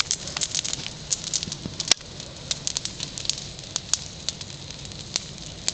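A burning beehive crackling: irregular sharp snaps and pops from the fire, with one louder crack about two seconds in.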